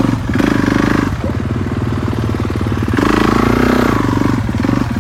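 Four-stroke dirt bike engine running, with the throttle opened twice: just after the start and again about three seconds in.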